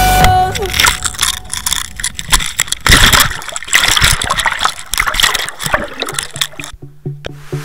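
Water sloshing and gurgling around a submerged camera as it is moved through the water, in irregular bursts that die away near the end.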